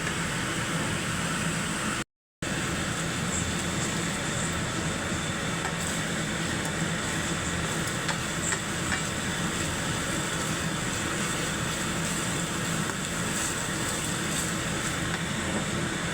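Steady sizzling of chicken pieces frying in a pan as they brown. The sound cuts out completely for a moment a little after two seconds in.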